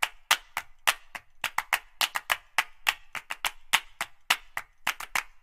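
Dry, sharp percussive clicks like claps or wood-block strikes, about five a second in an uneven rhythm, with silence between them.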